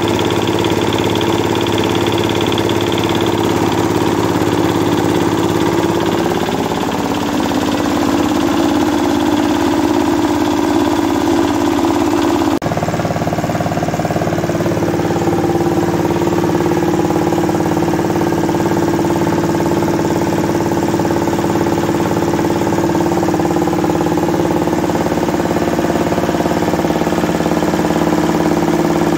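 Old 8 hp diesel engine of a rice mill running steadily. Its pitch dips slightly about six seconds in, and the sound changes abruptly partway through.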